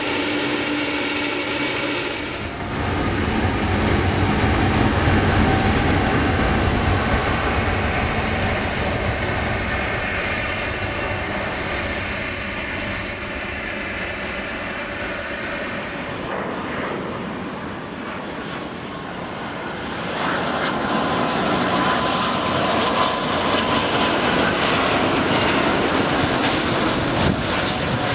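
Jet airliner engines heard across several edited clips: a Boeing 777 freighter's twin turbofans running with a deep rumble during its takeoff roll, then, after a cut, another airliner's engines with a steady whine over the rush.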